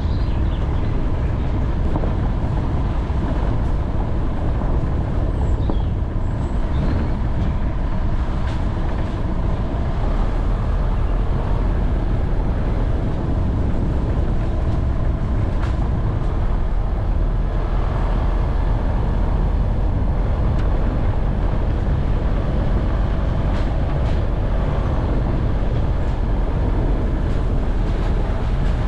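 Off-road vehicle driving over rough terrain: a steady low rumble of engine and tyres, with a few sharp knocks and rattles scattered through it.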